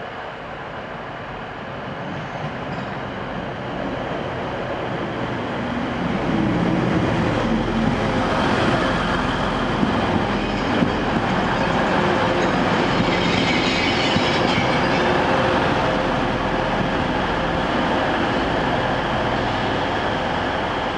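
First TransPennine Express Class 185 diesel multiple unit running into the station: engine and wheel noise grow louder over the first six seconds and then hold steady, with a few clicks of wheels over rail joints about halfway through.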